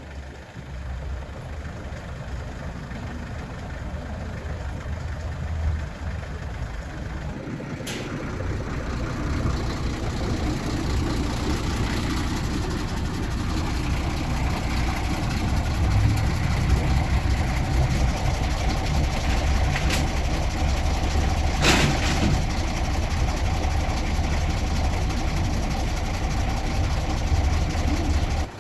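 An engine idling steadily with a low hum, getting somewhat louder over the first half, with a steady mid-pitched tone joining about halfway through and a few sharp clicks.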